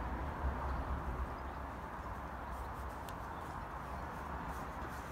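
Steady outdoor background hiss with a low rumble, and a few faint ticks in the second half.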